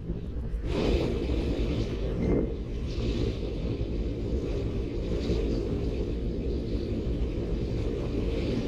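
Wind rushing over a bike-mounted camera's microphone while coasting fast downhill into a headwind: a steady low rumble that swells now and then.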